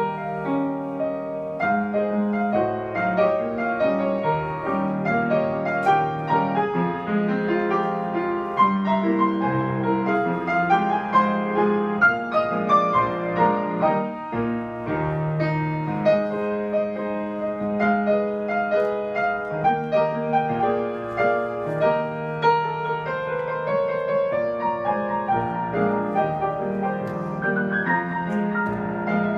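Solo grand piano playing a ragtime at a lively, even pace, a steady bass under a busy right-hand melody, with a brief break in the playing about halfway through.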